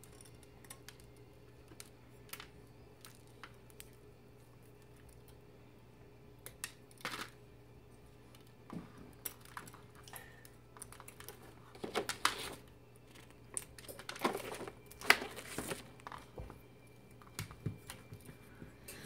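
Thin plastic mold being peeled and worked off a freshly set plaster casting: soft crinkling with scattered small clicks and scrapes of plaster, a few louder scrapes about two-thirds of the way through.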